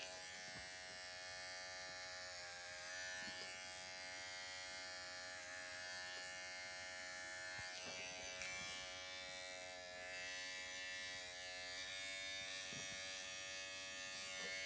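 Cordless pet hair clipper buzzing steadily as it trims the coat on a dog's leg, its pitch dipping slightly now and then.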